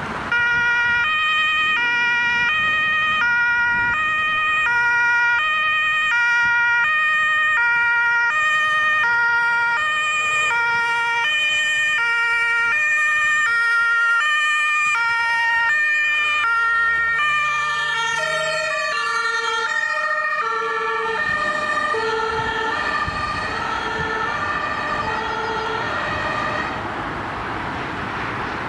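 German two-tone emergency vehicle siren (Martinshorn) from a passing convoy of Red Cross ambulances, alternating steadily between a high and a low tone. About halfway through a second siren overlaps out of step, and the tones stop a couple of seconds before the end, leaving vehicle and traffic noise.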